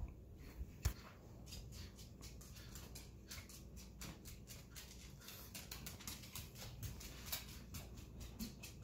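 A dog's claws clicking and tapping irregularly on a hardwood floor, faint, with one soft thump about a second in.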